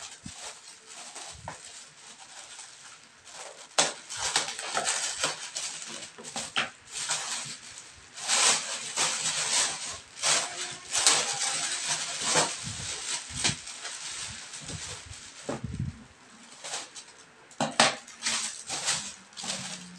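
Plastic packaging crinkling and rustling by hand, quiet for the first few seconds and then in dense bursts with a few sharp clicks, as a newly delivered part is unwrapped from its seal.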